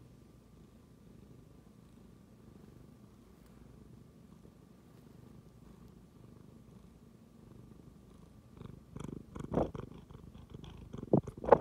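Orange tabby cat purring steadily close to the microphone, a low continuous rumble. In the last few seconds, irregular loud bumps and rubbing come in as the cat's fur and face brush against the phone.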